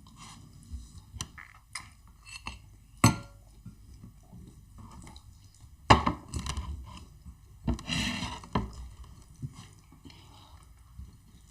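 Eating at a table: soft chewing and small mouth and food noises, with crockery clinked sharply twice, about three seconds in and again near six seconds, and a brief louder rustling, squelching stretch around eight seconds.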